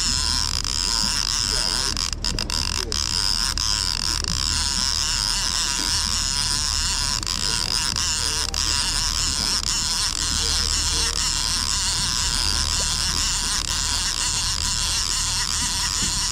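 Twin 300 hp outboard motors running at trolling speed: a steady low hum with a steady hiss over it.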